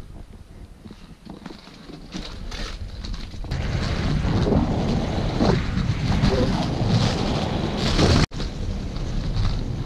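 Inline skate wheels rolling over stone pavement, with wind buffeting the microphone as the skater moves. The rolling rumble and wind get louder about three and a half seconds in, and the sound cuts out for an instant just after eight seconds.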